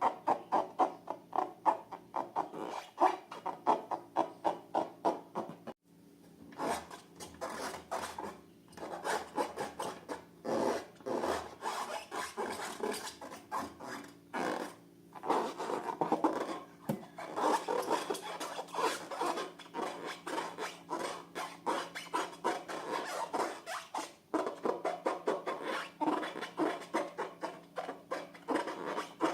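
Hands squishing, pressing and stretching slime in quick repeated strokes, about four a second at first. After a short break about six seconds in, the strokes come denser and less regular.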